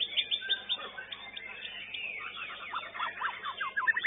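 White-rumped shama (murai batu) song: a fast string of clear whistles and sweeping notes, with a run of rapid falling notes a couple of seconds in.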